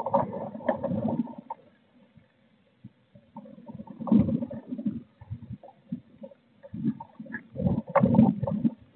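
Blue tit shifting and turning about in a wooden nest box, its claws scratching and its feathers rustling against the wood in three bouts of scuffling.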